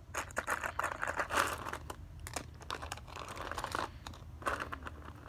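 Hands rummaging through a heap of small plastic toy wrestling figures: irregular clicking, clattering and rustling as the figures knock against each other and the plastic toy ring.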